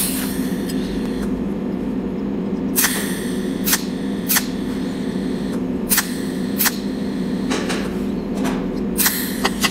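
Cold welding machine laying spot welds with its tungsten torch: a sharp snap for each arc pulse, roughly one a second from about three seconds in, over a steady electrical hum.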